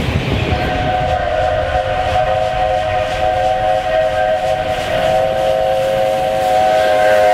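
South African Railways Class 26 steam locomotive's whistle blown in one long, steady blast of several notes sounding together, starting about half a second in, over the low rumble of the locomotive running past.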